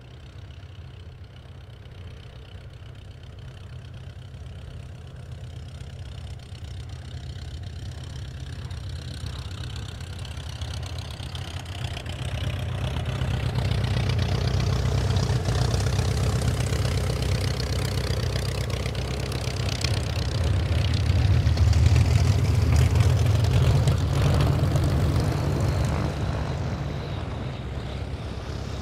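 Focke-Wulf Fw 44 J Stieglitz biplane in flight, its Siemens-Halske Sh 14 seven-cylinder radial engine and propeller running steadily. The drone grows much louder as the plane comes closer, is loudest about three-quarters of the way through, and eases a little near the end.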